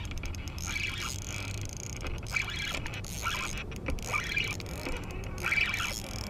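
A baitcasting reel is being cranked in short bursts, about once a second, as a hooked fish is reeled in. A steady low hum runs underneath.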